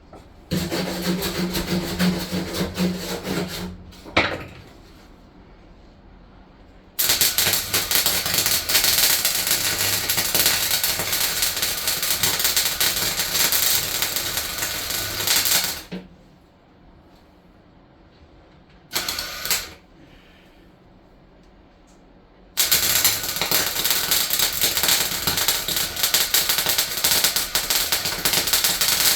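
Welding arc crackling and sizzling on the van's steel floor in long runs of several seconds, with short pauses between welds.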